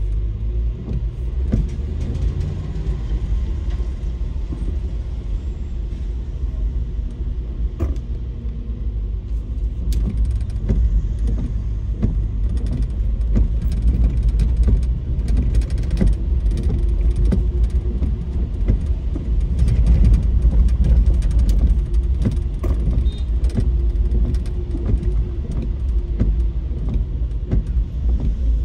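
Car driving: a steady low road and engine rumble heard from inside the cabin, with many small ticks and rattles scattered through it, thicker in the second half.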